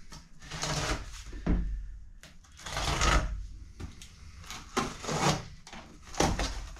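A taped cardboard box being opened by hand: a string of irregular scraping and rustling bursts as the packing tape is worked loose and the cardboard flaps are handled.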